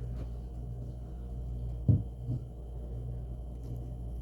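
Steady low hum with a faint hiss, broken about two seconds in by a soft thump and a smaller one just after.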